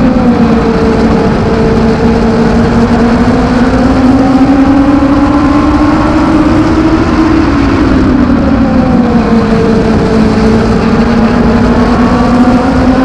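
INEX Legends race car's Yamaha motorcycle engine at racing speed, heard from inside the cockpit over road and wind noise. The engine pitch drops at the start, climbs slowly for several seconds down the straight, drops again about two-thirds of the way through as the driver lifts for a turn, then climbs again near the end.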